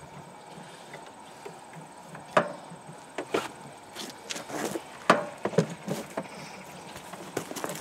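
Irregular knocks and clicks from hands working the belt and treadle of a Standard Rotary treadle sewing machine in its wooden cabinet. They start a couple of seconds in, with sharp knocks about two and a half and five seconds in.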